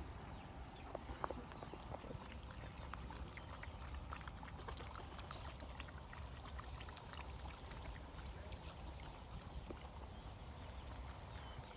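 Stray dogs eating: faint, irregular crunching and clicking of chewing food, over a steady low rumble.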